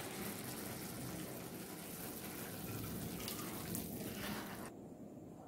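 Faint wet sloshing of thick, just-boiled paneer masala curry being poured from a nonstick pan into a bowl, with a few light scrapes of the spatula. The sound drops away near the end.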